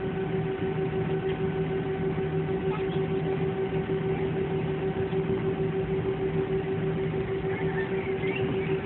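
Airliner's jet engines heard inside the passenger cabin: a steady hum with a fixed droning tone over a rushing noise.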